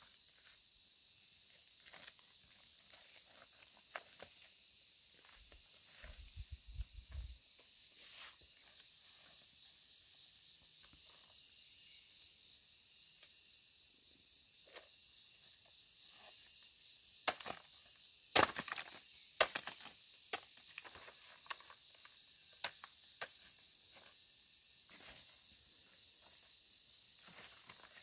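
A steady, pulsing chorus of insects, with scattered sharp snaps and crackles over it. The loudest snaps come in a cluster a little past the middle.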